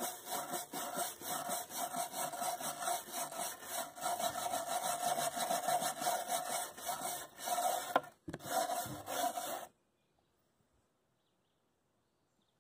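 Wire brush scrubbing the char off a torch-burned oak chair seat in quick back-and-forth strokes: the brushing-off stage of a shou sugi ban finish. It breaks briefly about eight seconds in and stops suddenly a couple of seconds later.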